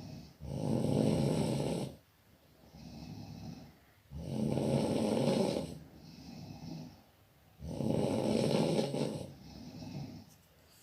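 A person snoring in a steady rhythm: three loud snores about three and a half seconds apart, each followed by a softer breath.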